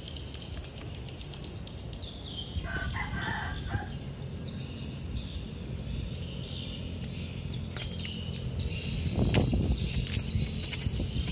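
A rooster crows once in the background, about two and a half seconds in, the call lasting a little over a second. Underneath runs a steady low rumble, which swells louder about nine seconds in.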